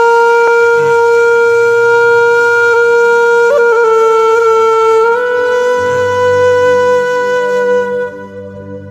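A single long held note on a wind instrument, laid over the picture as mournful background music. It wavers briefly about three and a half seconds in, steps up slightly in pitch about five seconds in, and dies away near the end.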